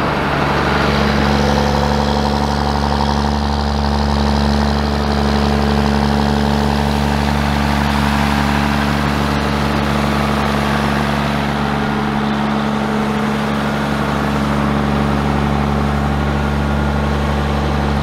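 John Deere 9520 four-wheel-drive tractor's six-cylinder diesel engine running steadily under load as the tractor pushes and packs chopped silage into a pile.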